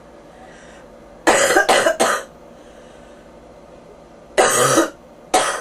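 A person with bronchitis coughing: a quick run of three coughs about a second in, then two more single coughs near the end.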